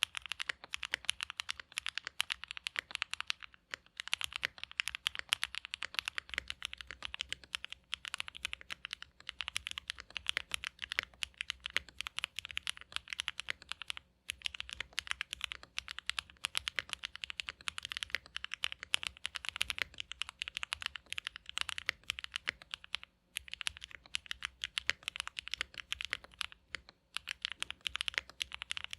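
Continuous fast typing on a Mode Sonnet custom mechanical keyboard with a POM plate, lubed linear Oil King switches and GMK keycaps: a dense stream of deep, muted keystroke clacks, with brief pauses about three and a half, fourteen and twenty-three seconds in.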